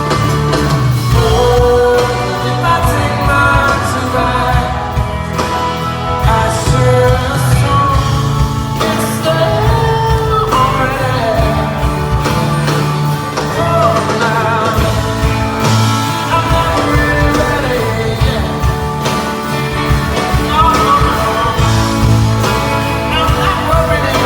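Live rock band performance: a male lead vocal over electric guitar, bass and drums, steady and loud throughout.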